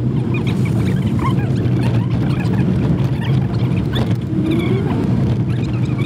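A Jeep driving on a rough gravel road, heard from inside the cab: a steady, loud engine and tyre rumble, with scattered short high squeaks throughout.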